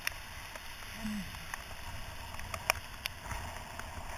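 Wind and wet-road noise from a bicycle riding in the rain: a steady hiss with a low rumble, broken by a few sharp clicks.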